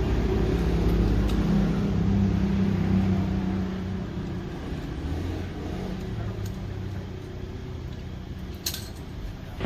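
Toyota Innova D4D diesel engine and its clutch fan running steadily; the sound gets quieter about four seconds in. A short click comes near the end.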